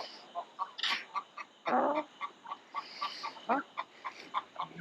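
Chickens clucking in a string of short notes, several a second, with a louder call about two seconds in and another about three and a half seconds in.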